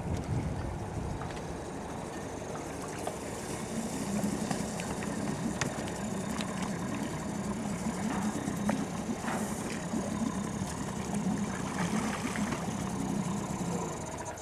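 Small outboard motor on an inflatable dinghy running steadily at low speed, then cutting out near the end.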